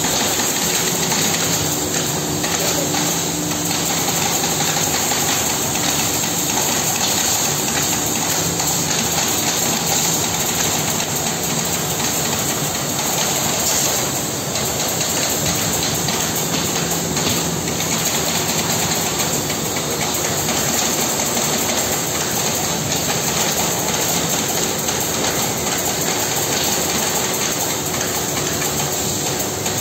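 Holztek HT-R3 three-head CNC nesting router running, its spindles cutting chair-seat blanks out of a plywood sheet: a steady mechanical noise with a high whine.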